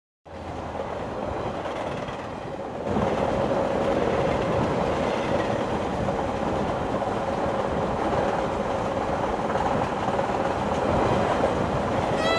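Steady rumble and rattle of a moving passenger train heard from inside the carriage, getting louder about three seconds in.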